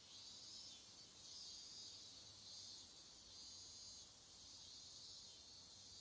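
Faint, high-pitched chirring of insects, pulsing in slow regular waves about once or twice a second over a low, quiet hum.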